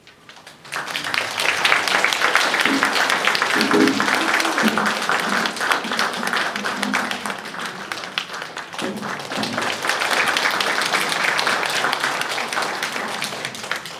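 Audience applauding, starting about a second in and fading away near the end, with a few voices among the clapping.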